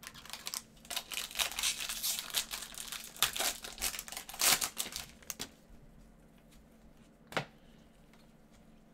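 Foil baseball-card pack wrapper being torn open and crinkled by gloved hands, with a dense run of crinkling for about five seconds. It then goes quiet except for a single sharp click about seven seconds in.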